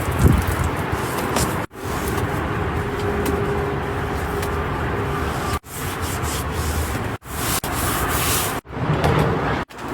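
Windows being washed with a hose and soapy scrubbing: a steady rushing, rubbing noise that is cut off abruptly and resumes several times.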